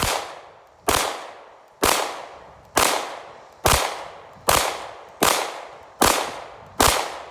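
Palmetto State Armory Dagger 9mm pistol firing Blazer aluminum-case 115-grain rounds in slow steady fire, nine shots about one a second, each trailing off in an echo.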